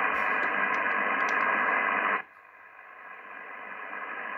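Band noise hissing from an Icom IC-R8600 receiver tuned to 10-metre upper sideband: the unexplained noise the owner has been picking up. The hiss drops away sharply about two seconds in, then slowly builds back up.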